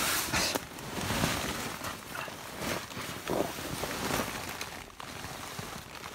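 Rustling and brushing of the tent's polycotton canvas door as it is pushed aside and opened, in a run of uneven bursts that die away near the end.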